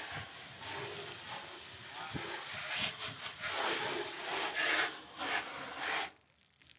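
Water spraying from a hose-end sprayer on a garden hose onto an aircraft's wing and fuselage, an uneven hiss of spray that stops abruptly about six seconds in.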